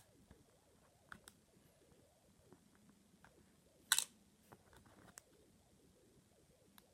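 Small handling clicks and taps, mostly faint, with one sharp click about four seconds in, over quiet room tone.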